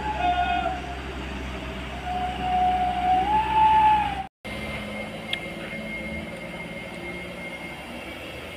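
Heavy trucks' engines running on a steep hairpin bend: a low rumble with a loud wavering tone over it for about four seconds. After a short break comes a steadier engine drone with a faint, steady high whine.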